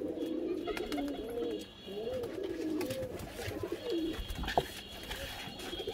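Pigeons cooing: a string of low calls that rise and fall.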